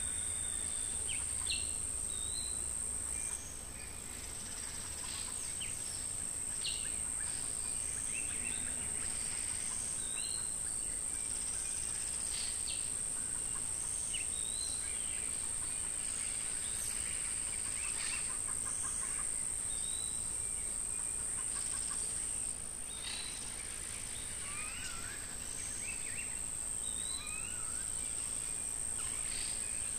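A steady, high-pitched insect chorus drones throughout, dipping slightly a few seconds in and again about two-thirds of the way through. Many short bird chirps and calls are scattered over it.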